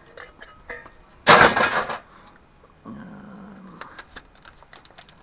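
Small clicks and ticks of parts being handled while taking apart an optical drive, with a loud, short burst of noise about a second in and a low hum for about a second near the middle.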